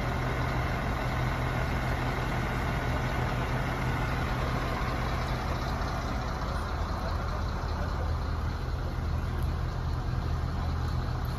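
Fire engine's diesel engine idling steadily, a continuous low hum.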